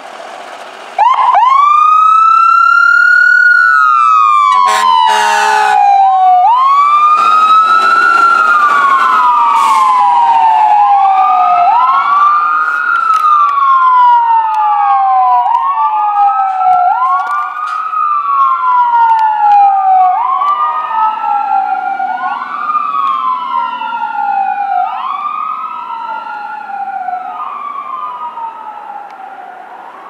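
Fire rescue truck's siren wailing, its pitch rising quickly and falling slowly about every two and a half seconds, with a short air horn blast about four and a half seconds in. The siren grows fainter near the end as the truck drives away.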